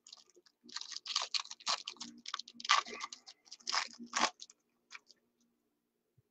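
Irregular bursts of crackly clicking and crinkling from handling at the table, busiest in the first two thirds and dying away after about four and a half seconds, over a faint steady low hum.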